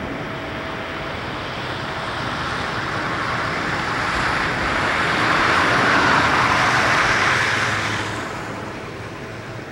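A road vehicle passing close by: tyre and engine noise that swells to a peak about six seconds in, then fades away by about eight seconds.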